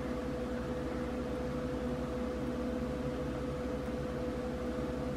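Steady machine hum with a constant mid-pitched tone over a low drone.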